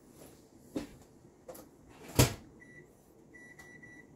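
A microwave oven door shut with a loud clunk about two seconds in, after a couple of lighter knocks. A few short high electronic beeps from the keypad follow as the cooking time is entered.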